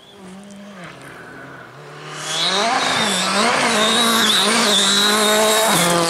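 A rally car on a gravel stage, its engine revs rising and falling, heard at a distance at first and then much louder from about two seconds in as it comes close, with a loud hiss of tyres on gravel over the engine.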